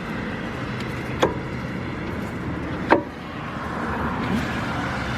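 Two sharp knocks as a brake caliper is pushed down over the pads onto its slide pins on a 2010 Dodge Ram 1500's front brake, the second louder, over a steady background noise.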